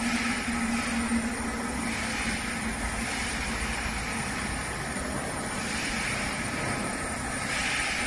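Stone CNC engraving machine running as it carves marble: a steady machine noise with a low hum, and a hiss that rises and falls every few seconds.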